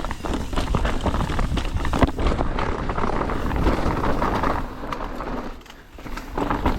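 Mountain bike descending a steep rocky trail, heard from the bike's action camera: tyres rolling over rock and roots, with the bike rattling and knocking continuously and wind on the microphone. The noise drops off briefly near the end, then picks up again.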